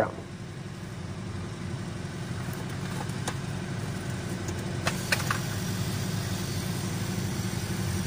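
Small refrigerator compressor humming steadily as it runs. A few light clicks come about five seconds in, as the plug is pushed into an extension-reel socket.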